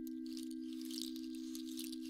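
A single pure, low tone held perfectly steady, as in a sound-healing drone, with faint scattered high ticks and tinkles above it.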